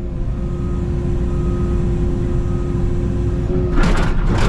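Takeuchi TB290 mini excavator's diesel engine running hard with a steady hydraulic whine while working a very heavy limestone boulder at the limit of its capacity. The whine cuts off about three and a half seconds in, followed by a louder, rougher burst near the end.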